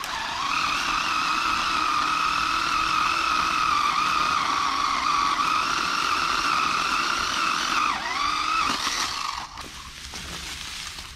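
Cordless electric pole saw running and cutting, a steady motor whine. Its pitch dips briefly about eight seconds in, then it shuts off about a second and a half later.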